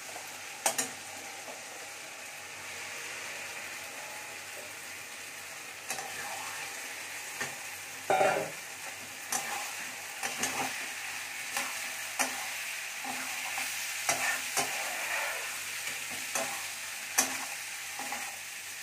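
Boiled whole moong dal frying in a steel kadai of onion-tomato masala: a steady sizzle, with a steel spatula scraping and knocking against the pan as it is stirred. A louder clatter comes about eight seconds in.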